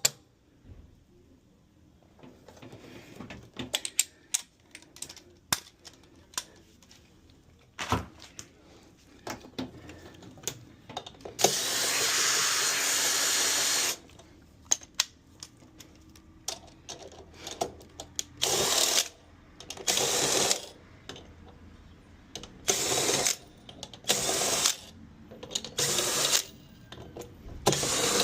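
Workshop tool sounds: scattered clicks and knocks of tools and parts being handled. A power tool runs steadily for about two and a half seconds near the middle, then in five short bursts toward the end.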